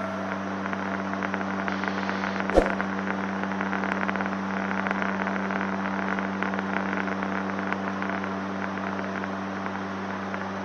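Steady cockpit drone of a Gulfstream Turbo Commander's twin turboprop engines and propellers in flight, a constant low hum under hiss. One short click about two and a half seconds in.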